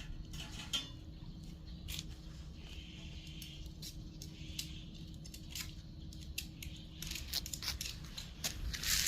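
Cats crunching dry cat food: irregular small crisp clicks and crunches, coming thicker near the end.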